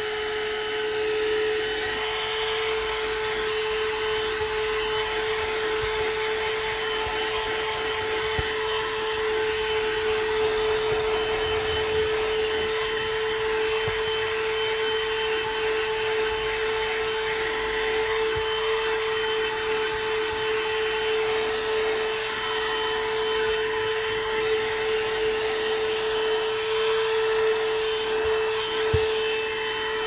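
HOTOR handheld 12 V car vacuum cleaner running steadily: a constant high motor whine over the rush of its suction as the nozzle is worked over a carpeted floor mat.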